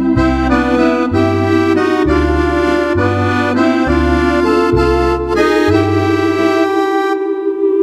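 Roland FR-4X digital accordion played with an accordion voice: held treble chords over a bass line that moves to a new note about once a second. The bass drops out briefly near the end while the chord rings on.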